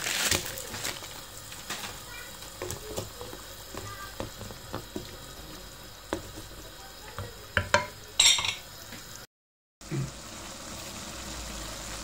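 Seafood and mushroom noodle broth boiling in a pan: a steady bubbling hiss with scattered small pops and clicks, and a louder crackle about eight seconds in. The sound cuts out briefly just after nine seconds.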